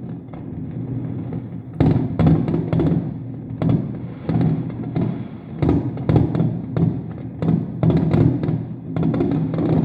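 Fireworks bursting with a dozen or so sharp, irregular bangs, over music with a steady low drone.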